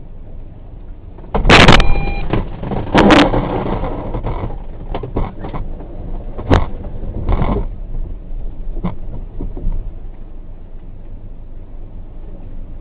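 Loud metallic bangs and knocks as a truck adrift in tsunami floodwater is struck by floating debris, including a loose truck cargo box. They come over a steady low rumble of water, with the heaviest crash about a second and a half in carrying a brief metallic ring, and further knocks every second or two until about nine seconds in.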